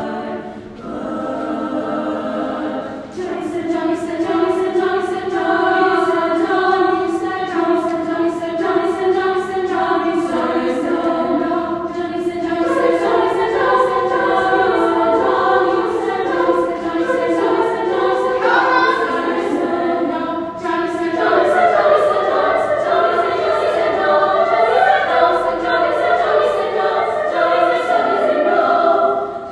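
A choir singing in held, sustained chords, many voices together.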